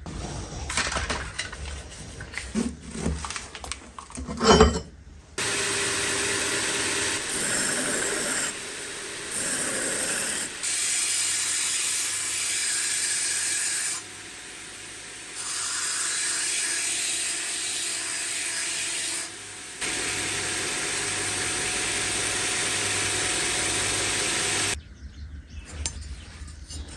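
A power tool runs steadily with a hissing, abrasive sound, in several stretches spliced one after another. Before it there are a few seconds of clattering handling noise with one loud knock.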